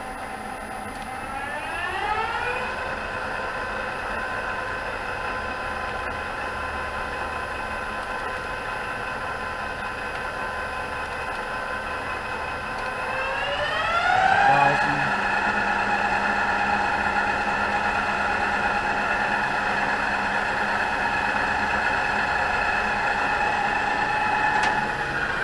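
Bridgeport Romi EZ-Path II CNC lathe's spindle running under its variable-frequency drive, with a steady motor whine. The pitch rises as the spindle speeds up about two seconds in, holds, then climbs again to a higher speed around thirteen seconds in, loudest as it gets there, and runs steady.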